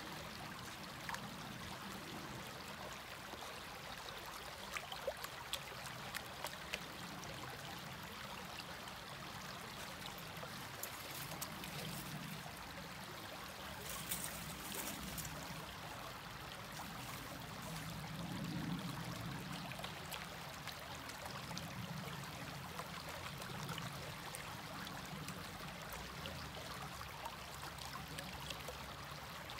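Shallow creek water running steadily, with water sloshing in and out of a plastic gold pan as it is dipped and shaken in the current to wash off light sand, and a few faint clicks of gravel in the pan.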